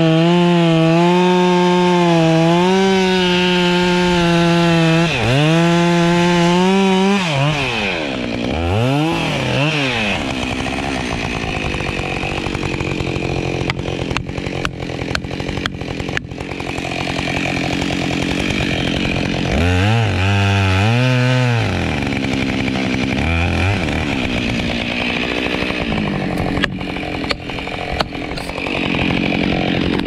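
Two-stroke chainsaw running at high revs in a cut, its pitch wavering under load. It then drops and revs back up a few times, about a quarter of the way in and again about two-thirds of the way in.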